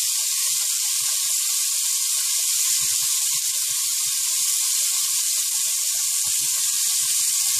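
Beef cubes searing in hot olive oil in a heavy pot, giving a steady sizzle.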